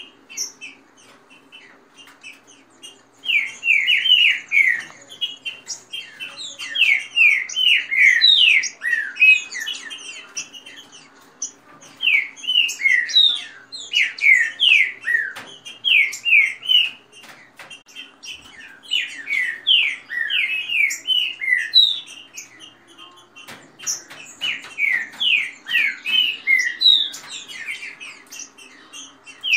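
Green-winged saltators (trinca-ferro) singing fast phrases of quick down-slurred whistled notes, in bursts a few seconds long with short pauses between.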